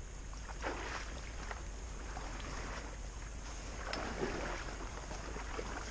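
Faint steady rustling noise with a few soft ticks.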